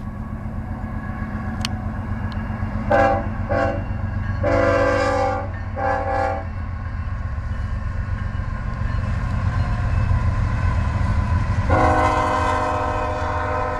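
Diesel freight locomotive's multi-tone air horn blowing for a passing double-stack intermodal train: two short toots, a longer blast and another short one about three to six seconds in, then a long blast starting near the end. Under it runs the steady rumble of the locomotives and rolling cars.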